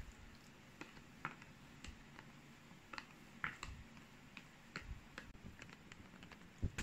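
Wooden chopsticks tapping and scraping a plastic container as thick sauce is scooped out into a bowl: faint, irregular small clicks, with a louder knock near the end.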